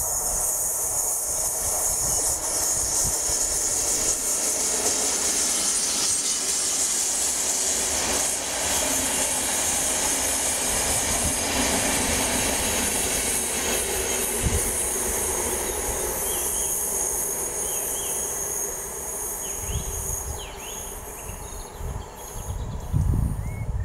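Locomotive-hauled express passenger train passing close by at speed: a steady rush of wheels on rail with a high hiss, fading over the last several seconds as the train draws away.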